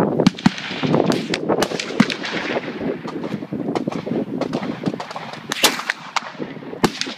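Gunfire at a busy outdoor shooting range: many shots from several guns at uneven intervals and loudness, overlapping, each trailing off in echo. The loudest cracks come near the start and about two seconds in.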